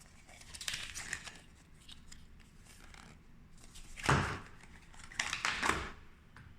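A plastic speedcube being handled and turned, with crinkling of plastic packaging: scattered rustling and clicking, a louder knock about four seconds in, and a quick run of clicks a second later.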